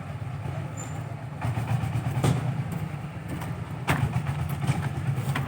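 An engine running steadily with a low hum, and three sharp knocks about two, four and five seconds in.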